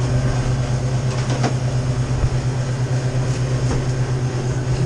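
Steady mechanical hum of refrigeration equipment running at a walk-in cooler, with a couple of light knocks from metal door hardware being handled.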